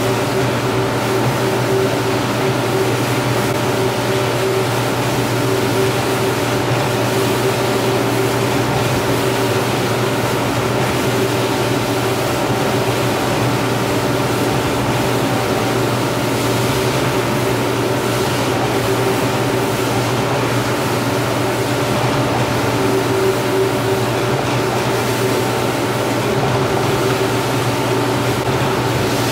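Rotary floor scrubber running steadily, its brush scrubbing a shampoo-foamed oriental rug: a constant motor hum with a hiss over it.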